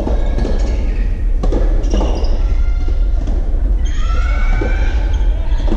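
Soft tennis rally in an indoor hall: sharp knocks of the soft rubber ball being struck, about a second and a half apart, then high wavering sounds over a steady low rumble of the hall.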